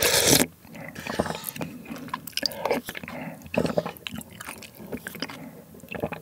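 A loud slurp of ramen broth from a wooden spoon right at the start, followed by close-miked chewing and small mouth sounds.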